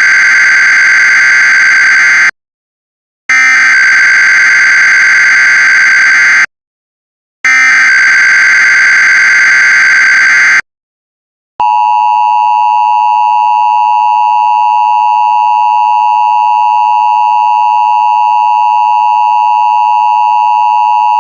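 Emergency Alert System SAME header: three runs of digital data tones, each about three seconds long with a second of silence between them. About eleven seconds in, the steady two-tone EAS attention signal (853 and 960 Hz together) starts. It holds for about ten seconds and cuts off just before the end.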